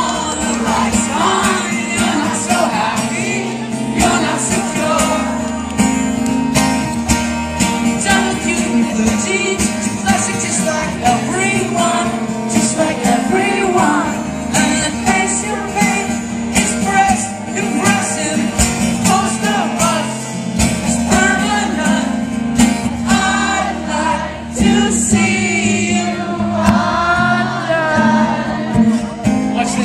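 Live rock band playing a song, with singing over guitars and a steady bass.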